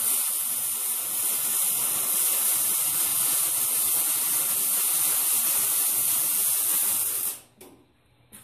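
Millermatic 252 MIG welding arc running steadily as a bead is laid onto a CO2-cylinder bell, then cutting off about seven seconds in.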